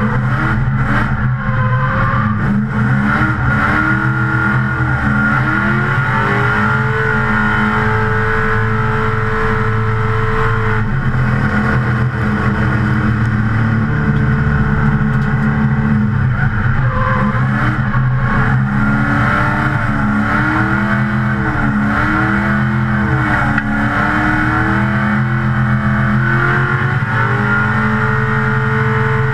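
Nissan 350Z's swapped-in 6.0-litre LS2 V8, heard from inside the cabin while drifting: the revs rise and fall again and again, held steady for a few seconds about a third of the way in.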